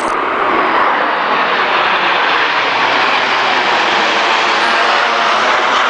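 CT-114 Tutor jets of the Snowbirds aerobatic team flying past: a loud, steady rush of jet engine noise.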